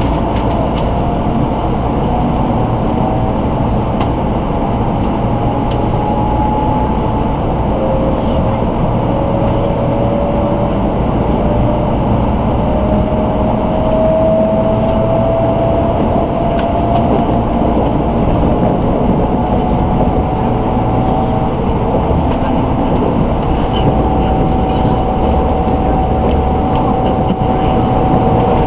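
Tokaido Shinkansen 300 series train running, with a steady low rumble of the running gear and a few faint whining tones from the traction motors that slowly rise in pitch as it gains speed.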